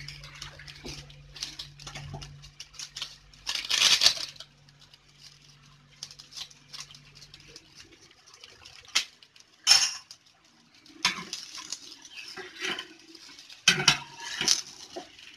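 Kitchen utensils clinking and scraping against an omelette pan in short, uneven bouts, the loudest about four seconds in and again near the end as a spatula works under the omelette's edge. A low steady hum stops about halfway through.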